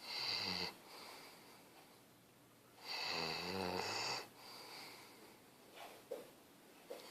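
Snoring in sleep: a short snore at the start and a longer one about three seconds in, with quiet breathing between.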